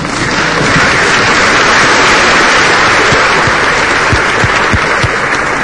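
Theatre audience applauding, a dense steady clapping, with a few low thuds in the second half.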